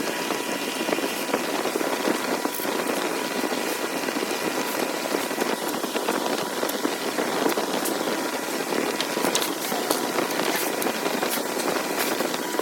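A woodworking power tool running steadily, an even machine noise with scattered small clicks.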